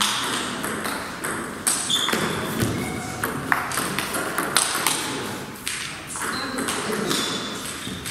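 Table tennis ball knocking back and forth between paddles and table in a rally: quick, irregular sharp clicks, some with a short ring, with voices in the background.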